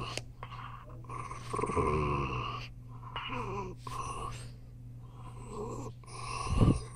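Elderly Jack Russell terrier growling in short bouts while guarding its toy, a possessive warning, with one louder burst near the end.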